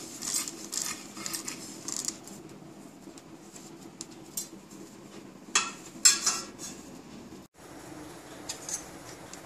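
Stainless steel kitchenware clinking and tapping: a steel plate knocks against a stainless steel mixer-grinder jar as spices are tipped in, with scattered light clinks and two sharper metal clicks a little past the middle.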